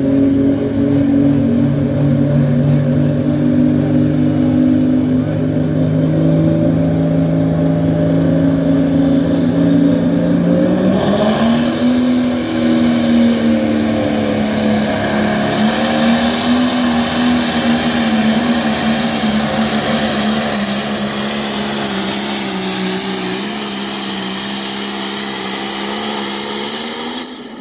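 Diesel engine of a Pro Stock pulling tractor held at steady revs. About 11 seconds in the pitch jumps as it goes to full power for the pull, and a high turbo whistle rises over the engine. The engine drops off suddenly right at the end.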